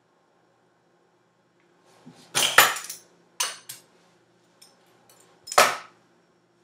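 Three short bursts of clatter, hard objects knocking and rattling together; the loudest comes about two and a half seconds in and the last near the end.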